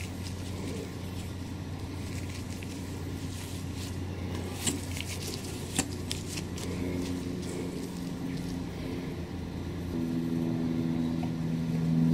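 A steady low machine hum, joined about two-thirds of the way through by a second, higher hum that grows stronger near the end, with a few faint clicks.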